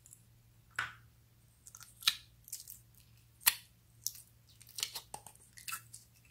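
Clear slime studded with pom-poms squeezed by hand out of a clear plastic tub, giving a string of irregular sharp sticky clicks and crackles.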